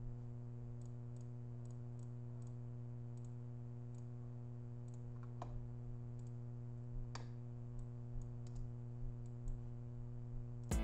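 Steady low electrical hum with scattered faint clicks from a computer mouse, two of them a little louder partway through.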